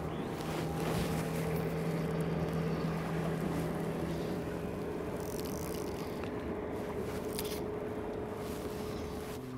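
Motorboat engine running with a steady hum, over a bed of wind and water noise.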